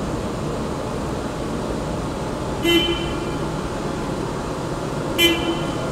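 Mitsubishi D3000LX6 six-colour 40-inch sheetfed offset press running steadily, with a short horn-like beep sounding twice, about two and a half seconds apart.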